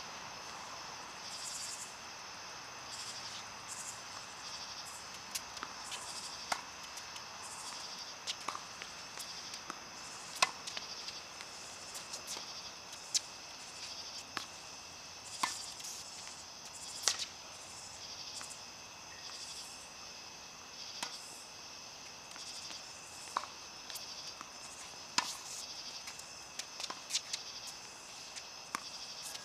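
Tennis balls being struck by rackets and bouncing on the court during a rally, sharp pops every second or two. Insects chirr steadily underneath.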